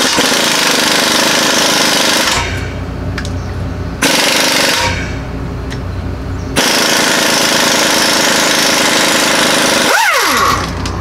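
Impact wrench hammering on exhaust manifold bolts, loosening them. It runs in three bursts: about two seconds at the start, a short one about four seconds in, and a longer one of about four seconds that ends with the motor winding down in a falling whine.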